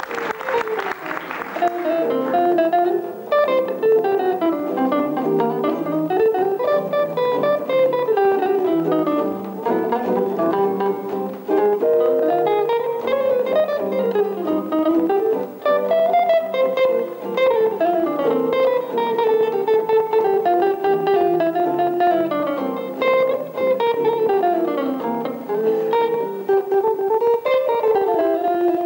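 Two amplified archtop jazz guitars playing an up-tempo duet: flowing single-note runs that climb and fall over a lower chordal accompaniment. Applause fades out in the first couple of seconds.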